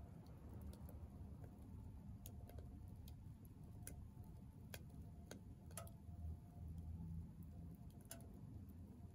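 Firewood crackling in a small Soomloom MECA wood stove: faint, irregular snaps and pops, about a dozen, over a low steady rumble.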